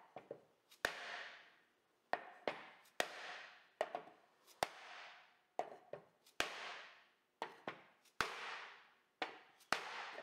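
A mallet striking a wooden block laid over a steel bearing housing to tap a seal back into its seat. About a dozen sharp knocks at uneven spacing, each followed by a short fading tail.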